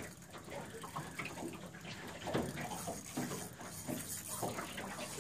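Water lapping against a boat's hull, an uneven wash with a few louder slaps.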